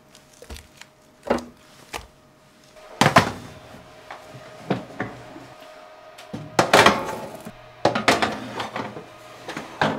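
Stainless steel roasting pan and countertop oven being handled: a string of sharp metallic knocks and clatters as the pan is picked up and slid into the oven, the loudest about three seconds in and a rattling clatter around seven seconds, over a faint steady hum.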